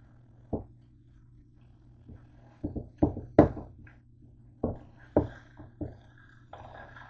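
Metal tongs knocking and clicking against a nonstick frying pan as bread is turned in it: a string of sharp, uneven taps, the loudest near the middle, over a low steady hum.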